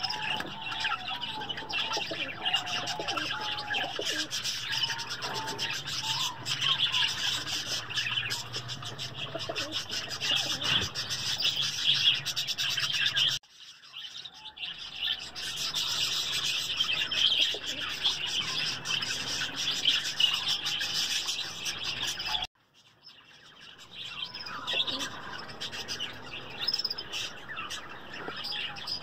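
Dense, continuous chirping of many small birds, with pigeons cooing now and then. The sound cuts out abruptly twice, about halfway through and again about two-thirds in, and resumes a moment later.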